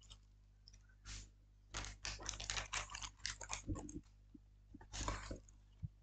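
A small plastic bag of bolts and screws crinkling and rustling as it is handled, in a quick run of short crackles with a last burst near the end.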